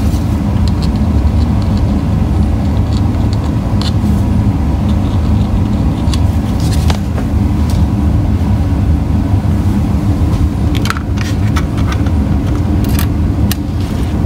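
A steady low rumble with scattered light clicks and taps from 3D-printed plastic frame parts and a small screwdriver being handled.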